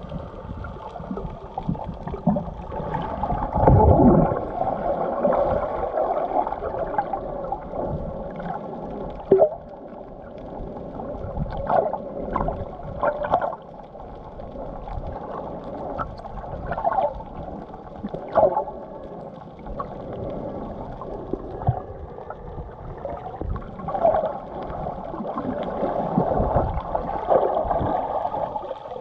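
Muffled underwater noise picked up by a submerged camera: swirling, gurgling water with occasional sharp clicks and pops, rising and falling in strength.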